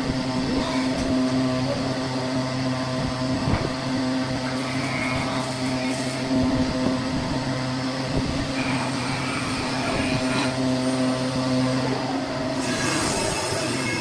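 Wood lathe running with a steady motor hum, mixed with the scraping noise of a turning tool cutting the spinning wood. The cutting noise turns harsher and hissier near the end.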